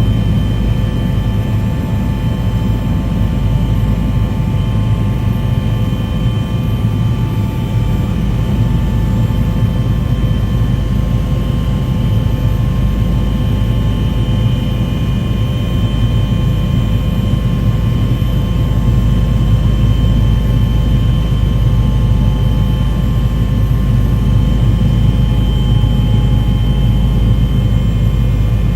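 A steady, unbroken mechanical drone with a heavy low rumble and a few constant high tones, like an engine running at a steady speed.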